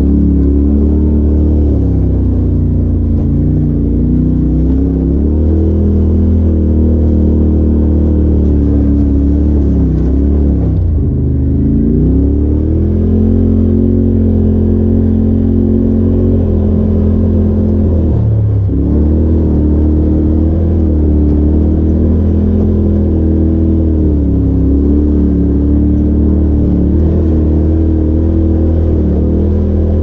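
Polaris RZR Turbo side-by-side driving a dirt trail, its turbocharged engine running steadily under throttle. The engine pitch dips and climbs back twice, about eleven seconds in and again about eighteen seconds in, as the throttle is eased off and reapplied.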